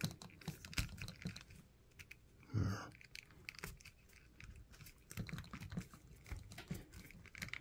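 Faint, irregular small plastic clicks and rubbing as an action-figure horse's interchangeable mane piece is fitted onto its neck by hand. A brief low hum about two and a half seconds in.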